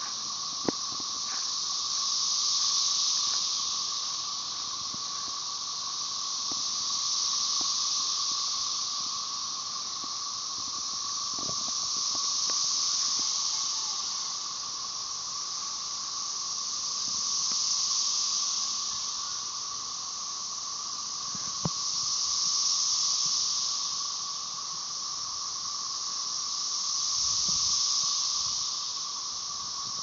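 Chorus of Magicicada tredecassini, the 13-year cassini-type periodical cicadas: a high buzzing hiss that swells and fades in waves about every five seconds as the males sing together. Beneath it, a steady lower drone of Magicicada tredecim cicadas.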